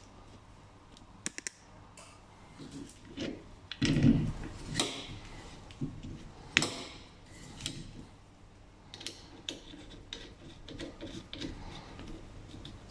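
Scattered clicks, knocks and short scrapes of parts and tools being handled during a car repair, with a heavier knock about four seconds in and a sharp click about halfway through.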